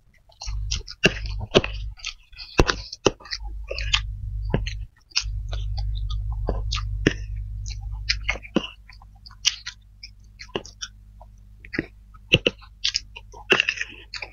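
Close-miked eating of fried flat rice noodles (kway teow): wet chewing and smacking mixed with sharp clicks of forks against the serving dish. A low hum runs underneath from about half a second in until about eight seconds in, with a short break around five seconds.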